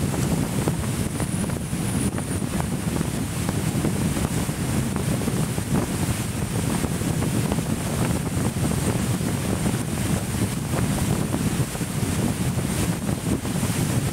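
Wind buffeting the microphone over the steady rush of water and low engine rumble of a Coastal Command Boat running at speed.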